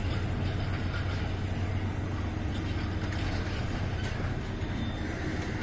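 Container freight train passing, its flat wagons rolling by on the rails in a steady rumble.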